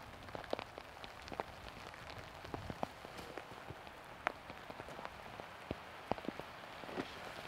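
Steady rain falling, with many irregular drops tapping close by.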